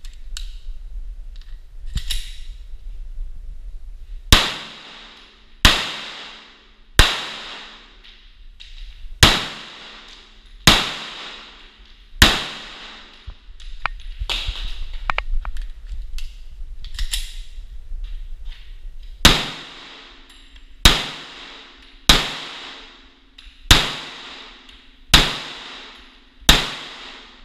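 Twelve pistol shots from a 9mm Glock 43 subcompact, each ringing and echoing away. They come in two strings of six, about one and a half seconds apart, with a pause of several seconds between the strings. Fainter sharp clicks and knocks come before the first string and during the pause.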